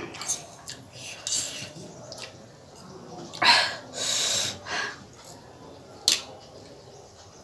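A person short of breath from very hot chilli food: a few short noisy breaths and a hiss of air drawn through the mouth, with light clicks of cutlery against a plate.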